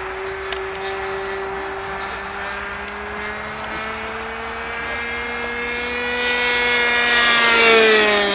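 Engine of a Boomerang radio-controlled model plane running steadily in flight, its pitch creeping slowly up. Near the end it grows louder and drops in pitch as the plane flies past.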